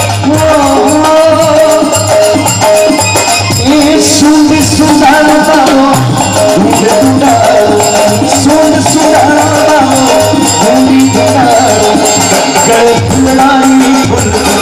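Instrumental interlude of a live Rajasthani devotional bhajan: a melody line over a steady hand-drum beat and shaken, rattling percussion, with no singing.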